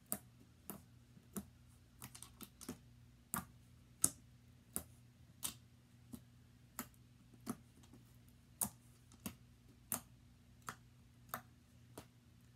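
Slime being poked and pressed by hand, each press giving a sharp click, mostly one every half to three-quarters of a second with a quick flurry about two seconds in. A faint steady hum sits underneath.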